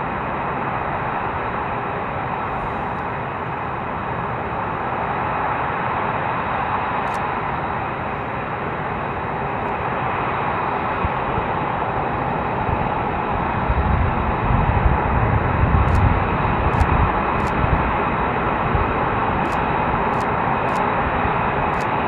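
Steady jet engine noise from a formation of taxiing F-22 Raptors, their twin Pratt & Whitney F119 turbofans at low taxi power. About two-thirds of the way through, a heavier low rumble swells for a few seconds.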